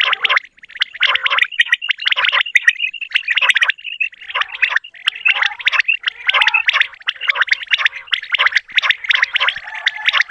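A chorus of common quails calling over one another: a dense, unbroken stream of quick chirping, rattling notes, the kind of recording played as a lure for quail hunting.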